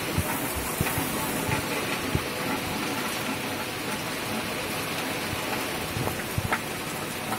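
Downpour: a steady hiss of heavy rain, with a few louder taps scattered through it.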